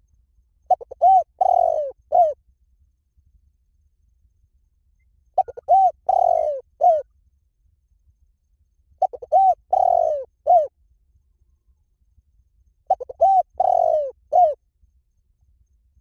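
Spotted dove cooing: four phrases about four seconds apart. Each phrase is a few short coos with one longer, drawn-out coo near its end.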